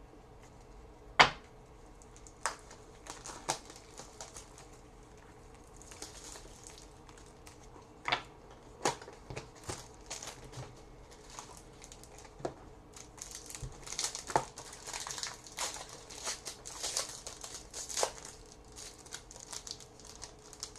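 Trading-card packaging being opened by hand: a few sharp snaps and clicks, the loudest about a second in, then a run of crinkling and tearing of a card pack wrapper through the second half.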